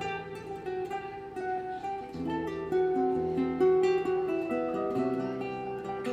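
Background music: acoustic guitar being plucked and strummed, with a bass line beneath.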